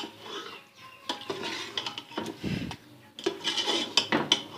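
A spoon stirring and scraping thick meat curry around a karahi, in irregular strokes with a few knocks against the pan.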